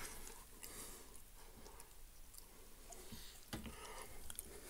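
Quiet room with a few faint, scattered clicks, the clearest about three and a half seconds in.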